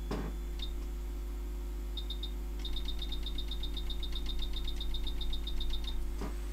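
Soldering station's control panel beeping as its temperature is set to 350 degrees. A single beep comes first, then a few, then a fast run of about eight high beeps a second lasting over three seconds. A steady mains hum lies underneath, with a light knock at the start and another near the end.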